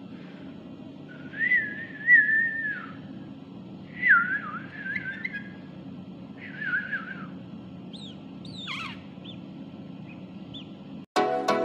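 Warbling whistles in three phrases of about a second each, followed by a few quick, sharp falling whistles; music starts abruptly just before the end.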